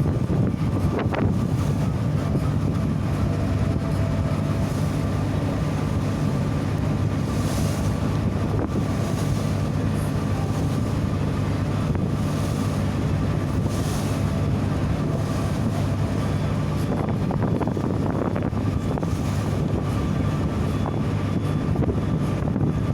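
A steady engine hum that holds an even pitch, with wind noise on the microphone.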